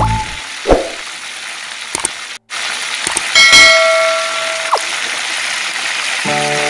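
Hot oil sizzling steadily as whole catfish deep-fry in a wok. About three and a half seconds in, a bright metallic ding rings for about a second and fades.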